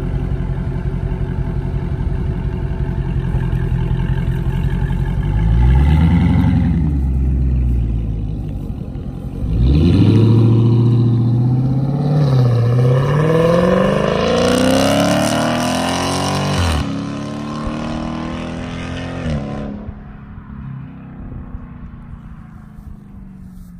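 Dodge Charger's 392 (6.4-litre) HEMI V8 idling, revved briefly about six seconds in, then taking off hard about ten seconds in. The exhaust note climbs, dips at a gear shift, climbs again, then drops off sharply and fades as the car goes away.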